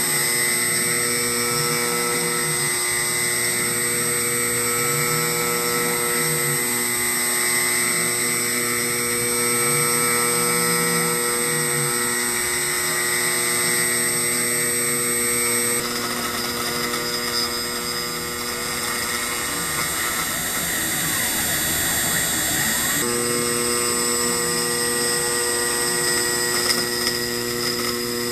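CNC router spindle running steadily while its end mill cuts a shallow recess into an aluminum plate. A low tone sweeps up and down every couple of seconds as the machine follows circular passes. Some of the steady tones drop out for several seconds past the middle.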